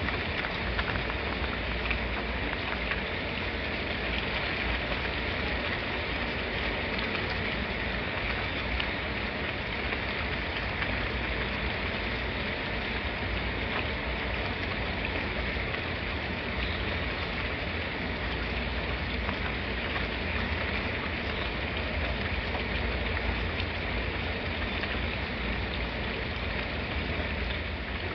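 Steady rain falling, an even, unbroken hiss with a low rumble beneath it.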